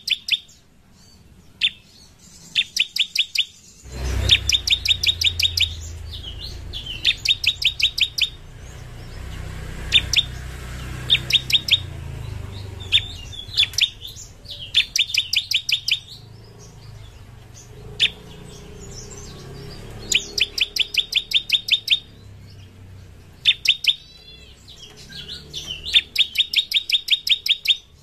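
Bar-winged prinia (ciblek) singing: repeated bursts of rapid, sharp, evenly spaced chirps, roughly eight a second, each burst lasting one to two seconds, with short pauses and single call notes between them. A low rumble sits underneath from about four seconds in.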